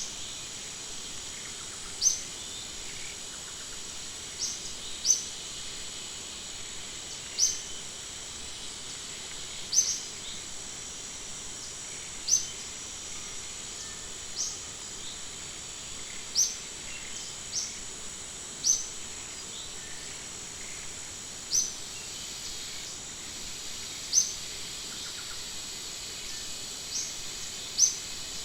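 A short, sharp, high chirp repeated about every two to three seconds, sometimes in quick pairs, over a steady high-pitched insect drone.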